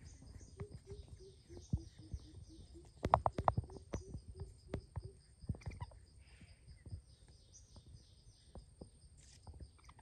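Forest ambience: insects trilling steadily and high, with a quick run of short low calls, about five a second, for the first few seconds. About three seconds in comes a loud cluster of sharp clicks and taps, then scattered lighter taps.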